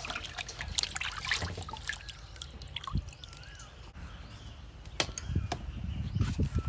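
Water dripping and splashing as wet knifefish are lifted out of a steel bowl of water and laid on a woven bamboo tray, with sharp clicks and knocks of handling, densest in the first couple of seconds.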